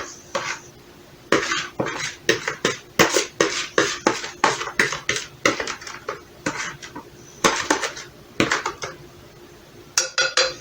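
Kitchen dishes and utensils clattering: an irregular run of sharp clinks and knocks, several a second, with short pauses between bursts.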